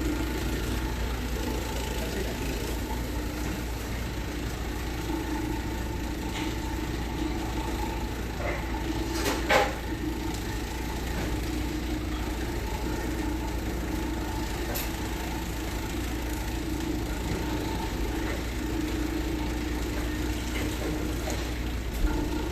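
Automatic green-onion slicing machine running with a steady hum, with a sharp knock about nine and a half seconds in and a smaller one near the end.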